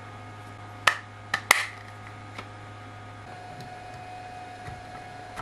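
Three sharp plastic clicks as the two halves of a small plastic air purifier housing are snapped together, followed by a few faint taps as it is set down, over a steady low hum.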